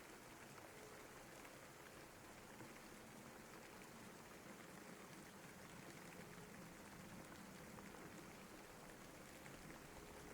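Rainstorm: steady, quiet hiss of rain with faint scattered drop taps.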